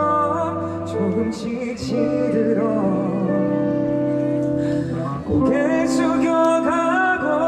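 A singer performing a calm, slow song live, the voice gliding between held notes over sustained accompanying chords.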